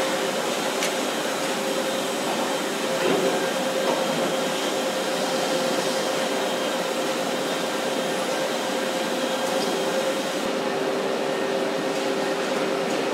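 Steady machine hum of a car factory hall: an even hiss with two steady tones held underneath. The hiss eases slightly about ten seconds in.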